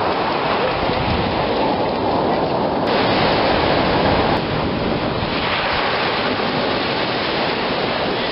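Ocean surf washing and breaking onto a sandy beach, a steady loud rush of water with wind buffeting the microphone. The sound shifts abruptly twice, about three and four and a half seconds in.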